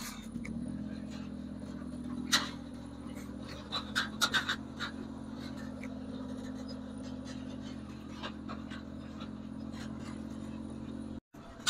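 Off-road buggy's engine running at a steady pitch while driving, with a few sharp knocks and rattles about two seconds in and again around four seconds in.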